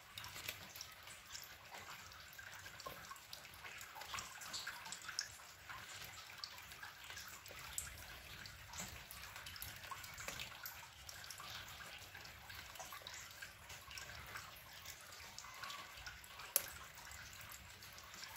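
Faint, scattered light ticks and taps of a plastic dough scraper and fingers picking up small cut dough squares and setting them on a baking tray, over a low steady hiss, with one sharper click near the end.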